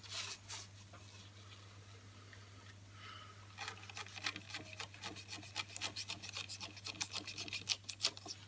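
Knife blade being drawn through rope: a dense run of quick, scratchy rasping as the fibres are cut, starting about three and a half seconds in, after a few clicks at the start.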